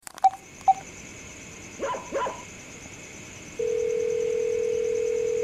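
Two short keypad beeps as a phone number is dialled, a dog barking twice, then the ringback tone of an outgoing call: one steady beep starting about three and a half seconds in and lasting about two seconds.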